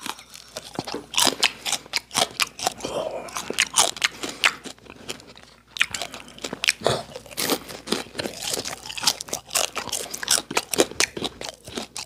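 A man crunching and chewing cooked frog, picked up by a microphone held right at his mouth. There are many irregular crisp crunches, with a brief lull about five seconds in.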